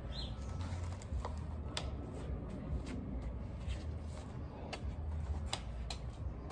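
Irregular light clicks and ticks, about one or two a second, over a steady low hum.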